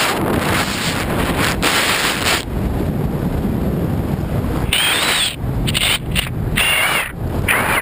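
Strong wind buffeting the microphone of a camera mounted outside a fast-moving Jeep Wrangler JK, over a low rumble of the vehicle running on a gravel track. Several short bursts of higher hiss with a wavering whistle come in the second half.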